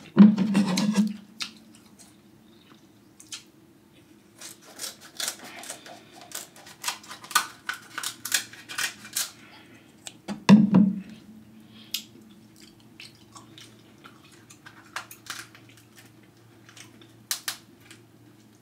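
Cooked king crab leg shells being snapped and pulled apart by hand close to the microphone: a dense run of crisp cracking and clicking through the middle, with scattered clicks later. Two louder short bursts come at the very start and about ten seconds in.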